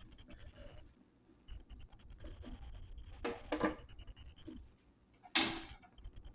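Knife cutting food a few pieces at a time: two or three short scratchy cuts about three seconds in, and a louder single cut near the end.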